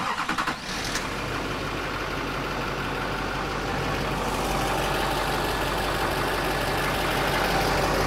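6.6-litre Duramax V8 turbo-diesel starting, with a few uneven pulses in its first moment, then settling into a steady idle. It starts right up after a fuel filter change, the sign that the fuel system was properly bled of air.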